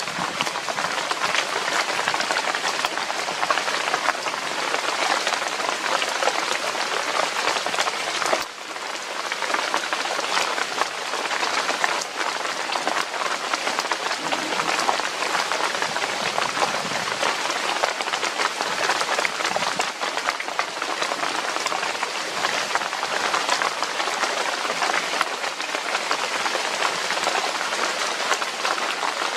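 Steady rain: a dense hiss of countless drops pattering, dipping briefly about eight seconds in.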